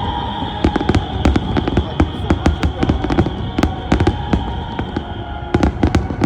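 Fireworks going off in quick succession: sharp bangs and crackles several times a second, easing briefly about five seconds in, over music.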